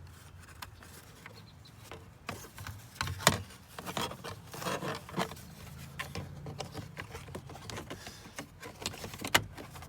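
Plastic door trim piece being handled and worked back into place on a car door: scattered clicks and light knocks with rubbing, the sharpest knock about three seconds in.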